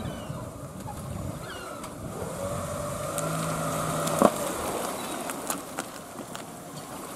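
Toyota Ipsum backing a boat trailer down a ramp into shallow water, its engine running under a light load over wind and lapping water. A steady tone joins about two seconds in and stops with a single sharp knock about four seconds in.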